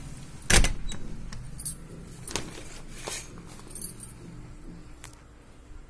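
Handling noise with a sharp knock about half a second in, then scattered clicks and a light metallic jingle.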